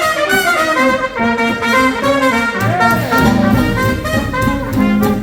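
Small hot-jazz swing band playing an instrumental passage, with brass horns leading over the rhythm section.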